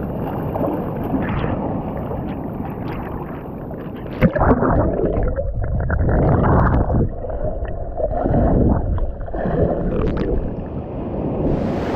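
Muffled underwater rushing and gurgling of churning surf, heard through a submerged action camera, in swelling surges. There is a sharp knock about four seconds in, and the muffling lifts near the end as the camera comes back above the surface.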